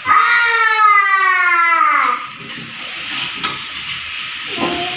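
A loud, drawn-out cry that falls steadily in pitch over about two seconds, with a shorter cry near the end, over the sizzle of stir-frying in a wok.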